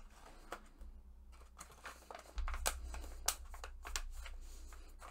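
Handling of a stiff plastic stand-up toolkit pouch as small tools are slipped back inside: faint rustling and crinkling with scattered small clicks and taps.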